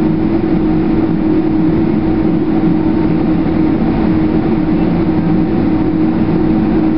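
Steady cabin drone inside a Boeing 767 taxiing after landing: the jet engines at taxi idle, heard as an even hum with a constant low tone and rumble.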